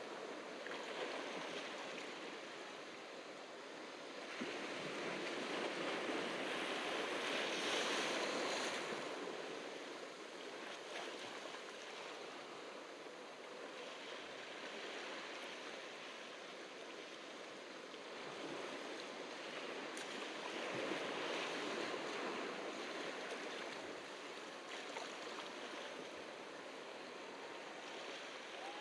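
Ocean surf washing onto the beach, a steady rush of water that swells louder twice, for several seconds each time, and eases back between the waves.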